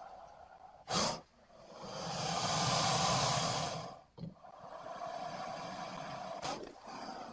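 Giant prehistoric snake creature sound effect: a long breathy hiss that swells and fades over about two seconds, set among quieter breathy rasps. There is a short sharp burst about a second in, and another near the end.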